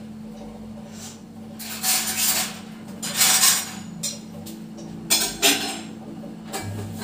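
Metal kitchen utensils being handled: several short clinks and scrapes, among them a steel slotted spoon laid on the gas stove top. A steady low hum runs underneath.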